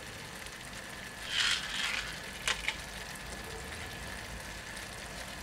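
Vegetables cooking in a stainless frying pan on a gas burner, a steady soft sizzle. About a second and a half in there is a brief louder hiss, followed shortly by two light clicks.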